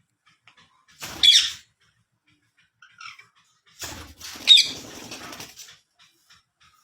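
Ringneck parakeets giving two short, shrill screeches, about a second in and again about four and a half seconds in. A softer rustle of movement surrounds the second call.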